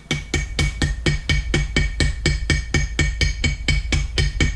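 Small ball-peen hammer tapping gasket paper against the edge of a metal casting in quick, even taps, about five a second, cutting out a paper gasket.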